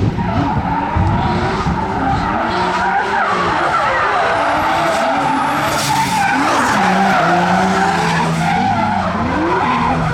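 Two drift cars in a tandem drift run, engines revving up and down under heavy throttle while their tyres squeal continuously.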